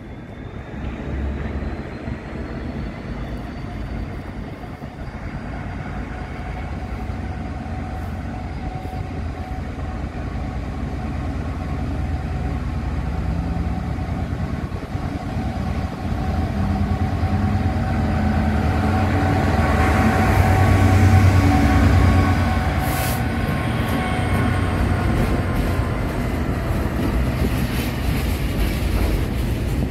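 Class 66 diesel freight locomotive, its two-stroke V12 engine running as it draws a container train past, getting steadily louder until it goes by about two-thirds of the way in. The loaded container wagons then roll past, with one sharp click just after the locomotive.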